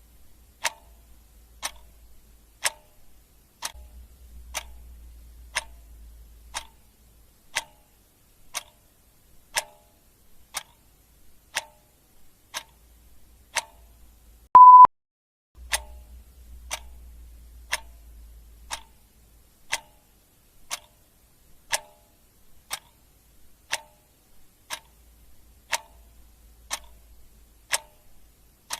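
Clock ticking about once a second. One short, high beep about halfway through is the loudest sound.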